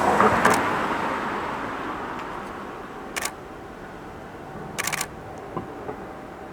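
Camera shutter clicking in short bursts: once about half a second in, again about three seconds in, and a quick run of several near five seconds. Under it, the noise of a passing vehicle fades away.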